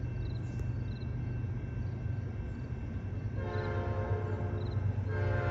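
Approaching CN freight train: the diesel locomotives rumble steadily, then the lead locomotive's air horn sounds a long blast about three seconds in and starts a second blast near the end, as a grade-crossing warning.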